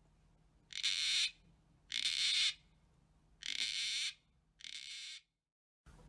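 Gang-gang cockatoo giving four short, harsh, scratchy calls just over a second apart, the last one fainter.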